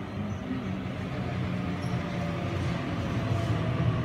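Sydney Trains double-deck electric train arriving at the platform, its running rumble growing louder as it draws alongside, with a faint whine coming in during the second half.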